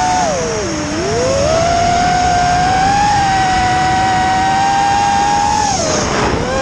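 FPV quadcopter's electric motors and propellers whining steadily. The pitch drops sharply and climbs back twice, about a second in and near the end, as the throttle is cut and brought back up.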